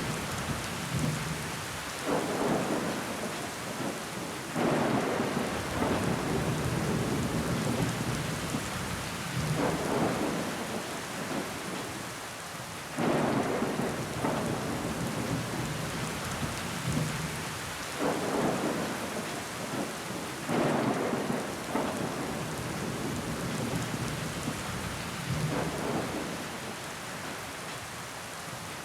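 Steady heavy rain falling on window glass, with water running down the pane. The rain swells louder every few seconds, several times starting suddenly.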